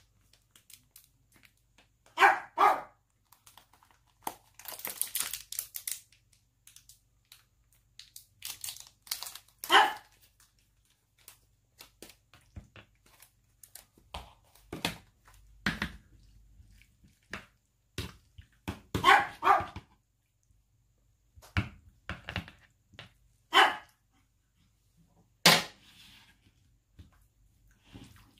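A dog barking a few times in short calls, a pair near the start, one near ten seconds, a quick run a little past the middle and one more later. Between the barks, a plastic tube crinkles as it is squeezed and a spoon clicks lightly against a plastic bowl.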